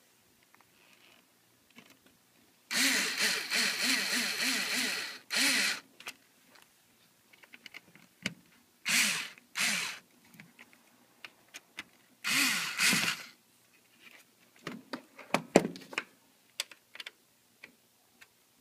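Cordless electric screwdriver whirring in several short runs as it drives screws into a TV's plastic back cover, the first run about two and a half seconds long and the rest under a second each. Light clicks and taps of handling the screws and case come between the runs.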